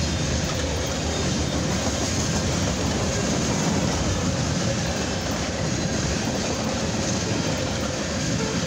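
Freight train cars rolling past at speed: a steady, even noise of steel wheels running on rail.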